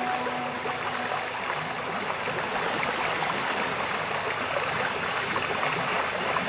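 Steady rushing, stream-like noise from the background soundtrack. The held tones of ambient music fade out about a second in, leaving the water-like rush on its own.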